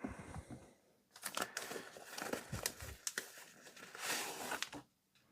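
Packaging being handled, crinkling and rustling with scattered small clicks, starting about a second in and dying away near the end.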